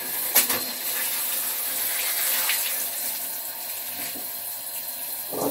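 Water spraying steadily from a handheld shower head onto a tiled floor.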